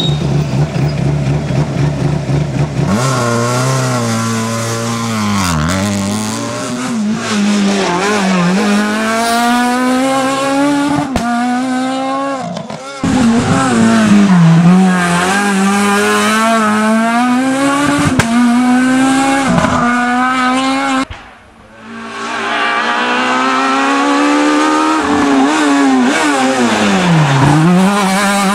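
Renault Clio S1600 rally cars driven hard through a hairpin one after another: each engine revs high, drops sharply on braking and downshifts, and climbs again through the gears on the way out, about three passes in all.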